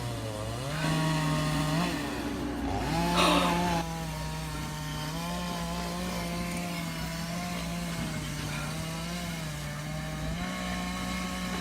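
Chainsaw running, its revs stepping up about a second in and again near three seconds, loudest briefly around three to four seconds in, then running steadily with small dips in pitch.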